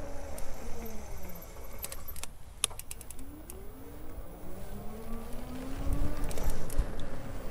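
Road traffic passing, its tones falling and then rising again, over a low wind rumble. A short run of sharp rattling clicks comes a couple of seconds in.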